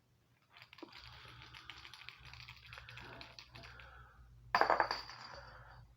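Rapid light clicking and rattling of a small toy ball as a kitten plays with it on the floor, with a short, louder clatter about four and a half seconds in.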